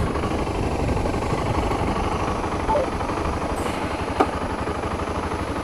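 Motorcycle engine running under way, a rapid low pulsing mixed with road and wind noise. A single sharp click about four seconds in.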